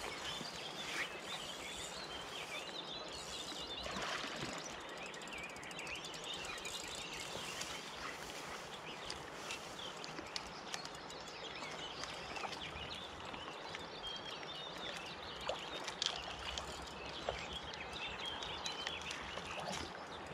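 Riverside ambience: a steady rush of river water with many small birds chirping and singing throughout, and a few short clicks, the sharpest about sixteen seconds in.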